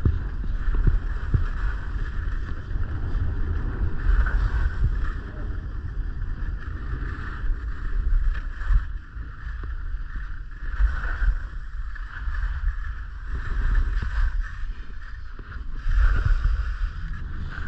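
Wind buffeting the microphone of a moving camera, a low rumble that swells and dips, over the steady hiss of skis sliding on packed, groomed snow during a downhill ski run.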